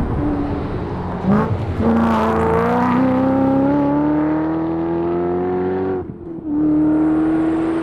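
Ford Mustang rally car's engine under acceleration, its note climbing steadily for about four seconds. Near the end it drops briefly at a gear change, then settles into a steady note.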